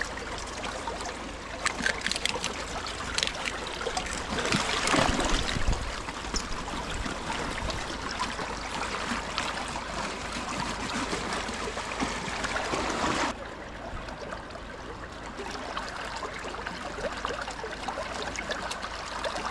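Steady splashing of running water, with a few light taps and scrapes from a knife as a sockeye salmon is filleted. A little over halfway through, the water sound suddenly turns quieter and duller.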